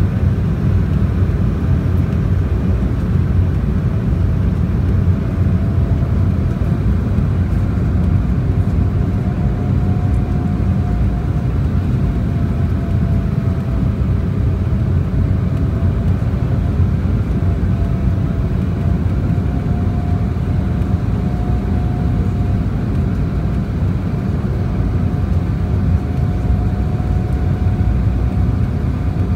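Steady cabin noise aboard an Embraer 190 airliner in flight: a deep rumble of airflow and engines, with a faint hum that drifts slightly in pitch.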